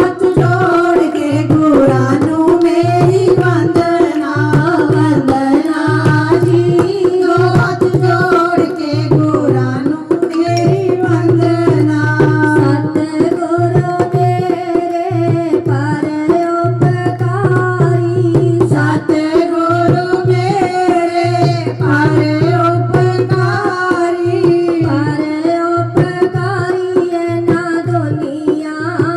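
Devotional kirtan music: a singer's voice carrying a sustained melody over fast hand-drum percussion, with a bass pulse that comes and goes, played loud through a sound system.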